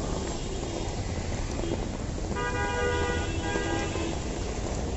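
A vehicle horn honks for about a second and a half, midway through, over the steady hiss of rain and the rumble of traffic on a wet street.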